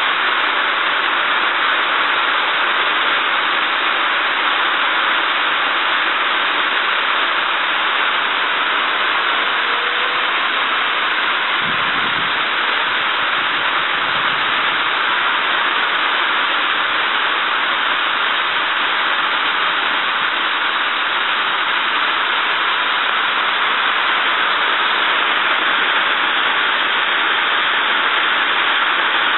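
Magma Dome ground fountain fireworks spraying sparks with a steady, loud hiss.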